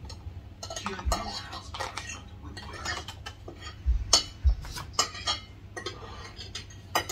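Metal cutlery clinking and scraping on plates and an aluminium foil takeaway tray as food is spooned out and eaten, with a few sharper clinks about four seconds in.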